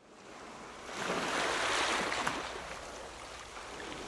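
Ocean waves washing, fading in at the start and swelling about a second in.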